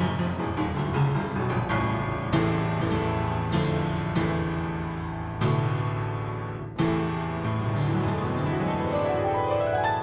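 Solo upright piano played forcefully: heavy chords struck every second or so, then a fast run of notes climbing up the keyboard over the last couple of seconds.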